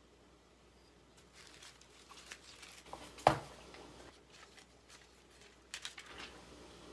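Cellophane crinkling and rustling in the hands as it is wrapped around a small painted wooden block, with one sharp knock about halfway through, the loudest sound.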